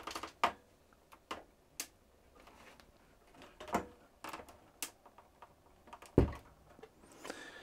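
Scattered clicks and knocks of hands handling an opened electronics chassis, its hinged circuit-board panel and its wiring. A dull thump about six seconds in is the loudest.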